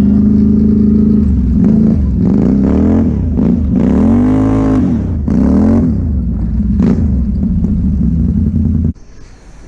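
Straight-piped Can-Am ATV engine running loud, revving up and falling back several times in the middle, then stopping abruptly near the end.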